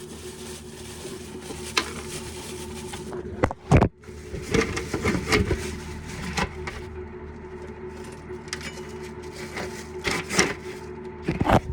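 A steady machine hum, with several sharp knocks and some clatter, the biggest knocks about four seconds in and near the end.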